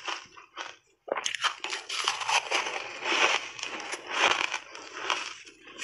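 Mouthful of crunchy shaved ice coated in matcha powder being chewed, with dense sharp crackling crunches. There is a short pause about a second in, then steady crunching.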